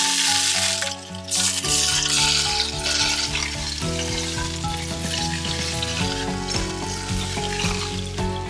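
Just-heated cooking oil poured over a steamed rockfish, sizzling hard and fading through the second half. Background music plays underneath.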